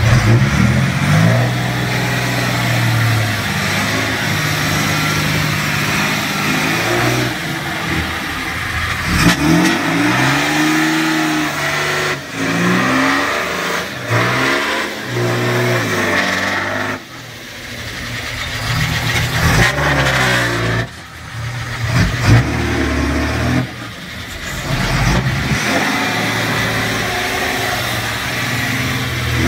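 A small dump truck's engine running and revving up and down over and over while it tips its load of soil, the sound breaking off briefly a few times.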